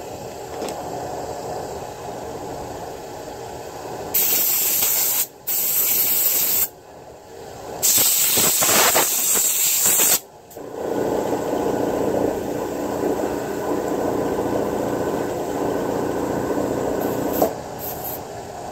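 Short, loud blasts of compressed air hissing from an air nozzle, three in a row about four to ten seconds in, blowing grease and oil out of a chainsaw bearing. They are followed by a steady mechanical hum and a few brief puffs near the end.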